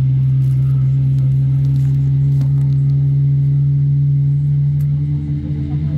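Boeing 777 jet engines and cabin air heard inside the cabin during taxi: a steady low drone whose pitch steps up slightly about five seconds in.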